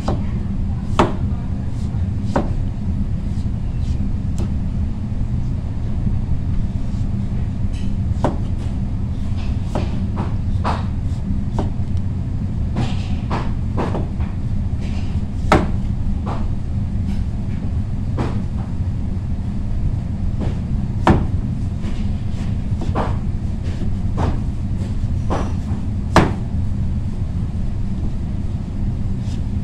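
Long kitchen knife cutting through peeled squash and knocking down onto a plastic cutting board: sharp, irregular chops every second or so, over a steady low hum.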